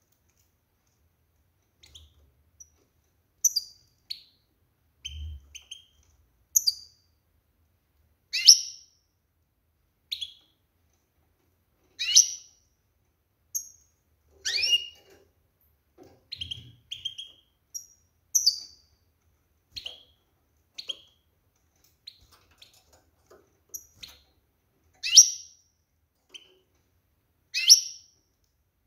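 Female European goldfinch calling in a cage: short, sharp, downward-sweeping call notes every second or two, with a few softer double notes between them. These are the calls a hen goldfinch gives when ready to breed, to stir males into singing.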